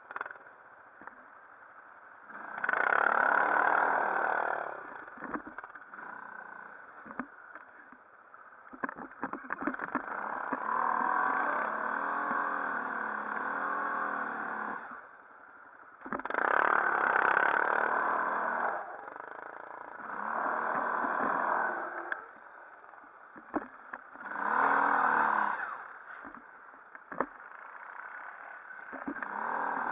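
ATV engine revving in about six separate bursts of throttle, its pitch rising and falling within each burst, with quieter stretches of low running between them. Scattered sharp knocks come in the quiet stretches.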